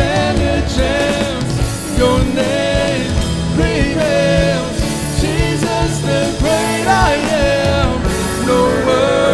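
Worship song: voices singing a melody over band accompaniment with a steady beat.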